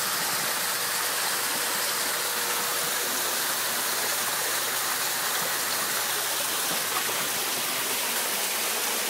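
Floodwater pouring into a basement through holes breaking open in the wall, a steady rushing of water.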